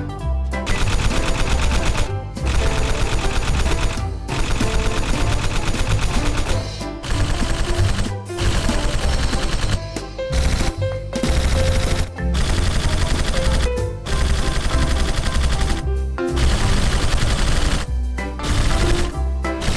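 Background music with a loud, rapid rattling beat like machine-gun fire, in sections about two seconds long broken by short pauses.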